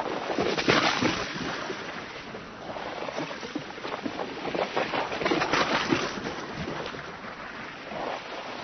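Sea waves splashing and crashing against the side of a boat, in a continuous wash of water with louder surges about a second in and again around five to six seconds in.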